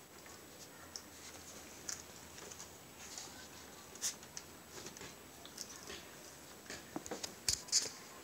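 Puppies playing: scattered soft clicks, scratches and rustles of paws and teeth on rugs and a cloth, a little louder and closer together near the end.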